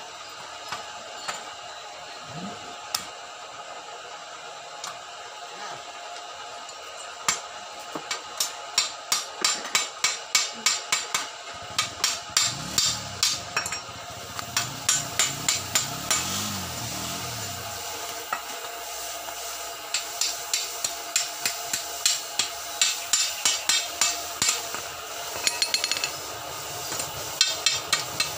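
Chipping hammer striking a freshly arc-welded steel pipe joint, knocking off slag. The strikes come in quick runs of about three to four a second with short pauses between, after a few scattered taps at first.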